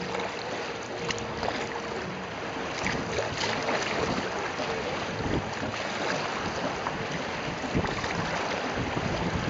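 River water rushing and splashing around a kayak, with wind noise on the microphone, as a steady even hiss.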